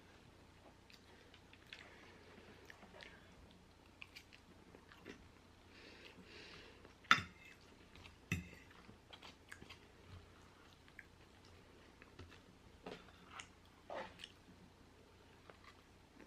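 Close-miked chewing and mouth sounds of a person eating sauce-covered French fries: faint, scattered wet smacks and clicks, with the two loudest about seven and eight seconds in.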